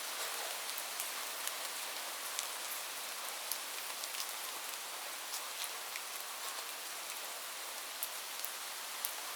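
Steady rain falling: an even hiss with many scattered, individual drop ticks on top.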